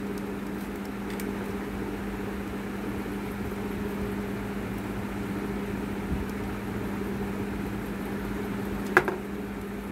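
A steady low machine hum, with one sharp click about nine seconds in.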